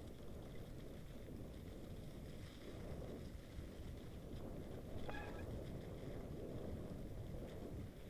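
Mountain bike rolling down a snowy trail: a steady low rumble of tyres in snow and wind on the bike-mounted camera's microphone, with a short high squeak about five seconds in.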